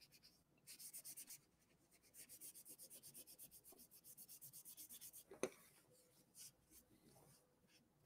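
Faint, quick back-and-forth rubbing on paper, several strokes a second in short runs with pauses, as ink is scrubbed off a painting. A single sharp click about five and a half seconds in.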